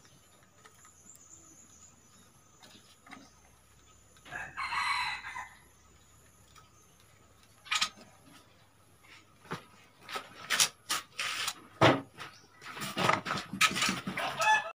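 Birds calling in bursts: one call about four seconds in, then a run of louder calls from about ten seconds to the end.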